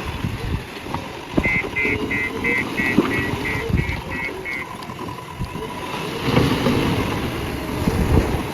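JCB backhoe loader working, its diesel engine running with scattered knocks and clanks and a wavering whine. About a second and a half in, a reversing alarm beeps about three times a second for some three seconds.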